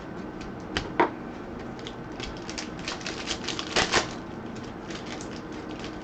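Football trading cards being handled and flipped through by hand: a run of quick clicks and snaps as the cards slide and tap against each other, with the sharpest snaps about a second in and again around four seconds.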